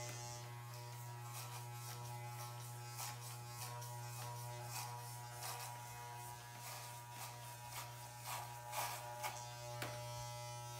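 Corded Wahl electric hair clippers running steadily, with short crackling rasps each time the blades pass through hair in repeated strokes.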